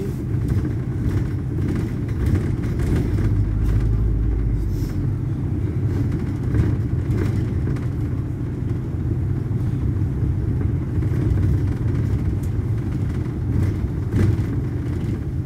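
Cabin noise of a double-decker bus on the move, heard from the upper deck: a steady low engine and road rumble, deepening briefly about four seconds in.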